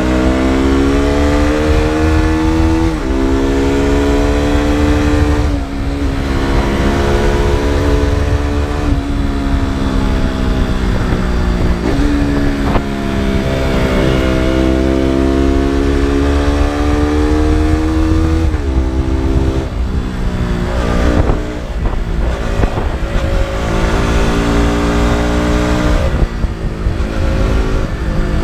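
KTM RC 200's single-cylinder four-stroke engine and exhaust under riding load. The pitch climbs and falls as the throttle is worked, breaking off sharply several times at gear changes or throttle roll-offs, over a steady low rumble.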